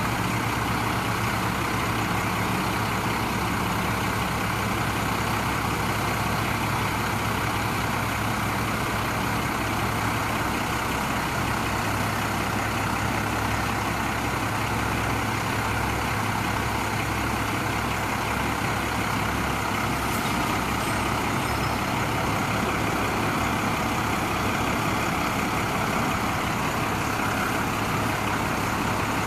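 Cummins 5.9-litre diesel engine of a Ford F800 bucket truck running steadily at a constant speed, driving the hydraulics while the aerial boom is operated.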